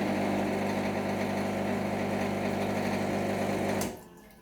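Rancilio espresso machine's pump humming steadily as it pushes water through the group head in the CL2 cleaning cycle, then cutting off sharply about four seconds in.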